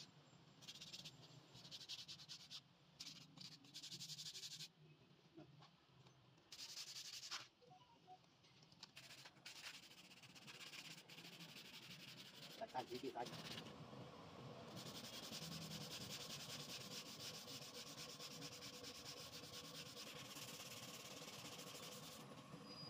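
Hand sanding of a cylinder head's gasket face with sandpaper on a flat block, a dry rasping rub back and forth over the metal. It comes in short separate stretches at first and turns into continuous strokes from a little past halfway.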